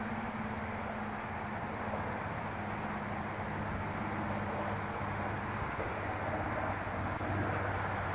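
Steady low mechanical hum, like a running engine, under an even outdoor rushing noise, with no distinct knocks or calls.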